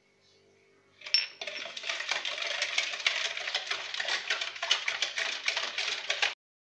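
Plastic whisk beating milk, sugar and yeast in a ceramic bowl: rapid clicking and clattering against the bowl, starting about a second in and stopping abruptly near the end.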